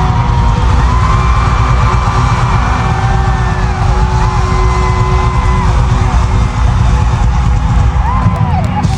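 Live band music at concert volume, heavy in the bass, with held notes and gliding higher pitched lines over it. Crowd yells and whoops mix in, heard from within the audience.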